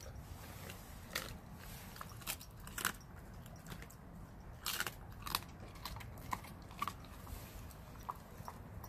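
Blue Bay Shepherd chewing raw food with open-mouthed bites, giving a string of sharp crunches at irregular intervals.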